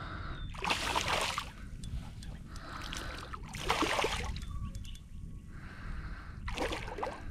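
A hooked fish splashing at the surface beside a kayak: three short splashes, about a second in, around four seconds and near the end, over a steady low rumble.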